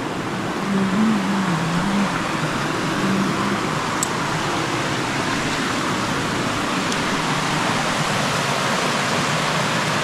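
Steady rush of a waterfall's falling water, with a single brief click about four seconds in.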